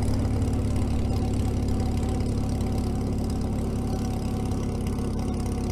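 International Harvester TD-6 crawler's four-cylinder diesel engine running at a steady low speed as the crawler creeps forward through deep snow, towing a tire drag.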